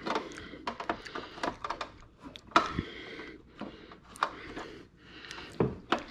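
Fingers tapping and rubbing over an Instant Pot's plastic lid, giving a run of irregular light clicks and knocks.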